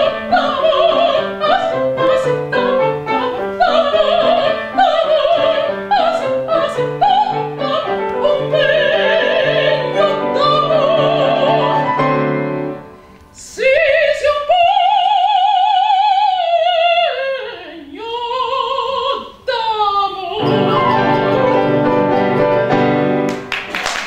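Mezzo-soprano singing an operatic Venetian song with piano accompaniment; about halfway through the piano drops out and she sings alone, her vibrato voice sweeping down and back up. The piano then returns for the closing chords, and applause breaks out right at the end.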